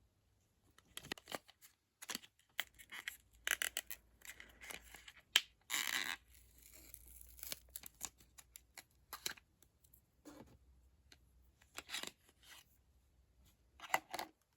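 Small product packaging being handled: a run of short rustles, scrapes and clicks, with a sharp click about five seconds in and a longer rustle just after.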